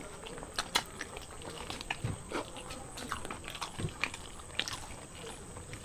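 Close-miked chewing and lip-smacking of people eating paratha and dum aloo by hand: irregular mouth clicks and smacks with a few sharper taps.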